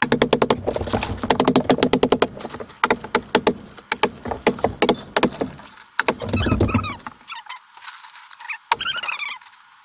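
Sped-up work sounds from fixing plastic vapour barrier over a framed wall. A fast run of sharp clicks is followed by squeaky, high-pitched chirps.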